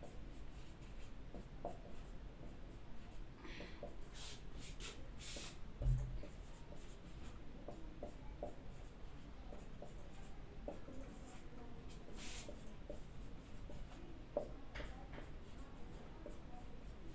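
Felt-tip marker writing on a whiteboard: faint scratching and squeaking strokes of the tip, with a low thump about six seconds in.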